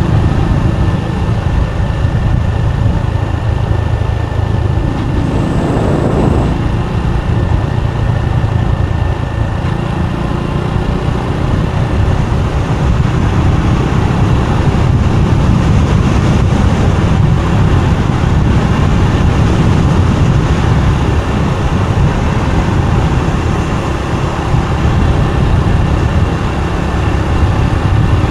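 Motorbike running steadily along the road, with a continuous low engine rumble and road noise. A short extra rush of noise comes about five to six seconds in.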